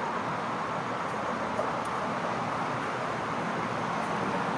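Steady city street noise from passing traffic, an even hiss and rumble with no distinct events.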